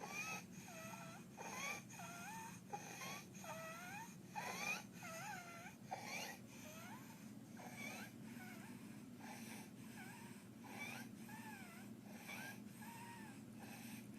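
Infant's stridor: a high-pitched, squeaky, wavering crowing sound on each rapid breath, repeating every half second to a second, the sign of a narrowed larynx causing laryngeal dyspnea (breathing distress).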